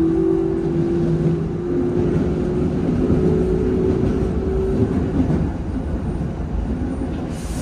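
Keikyu 1500-series electric train pulling away, its traction motors whining in a tone that rises slowly in pitch for about five seconds and then fades, over the steady rumble of the train running on the rails.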